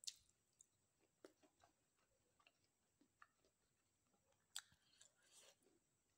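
Faint close-miked chewing of a mouthful of food: sparse wet mouth clicks and smacks, the sharpest right at the start and again about four and a half seconds in.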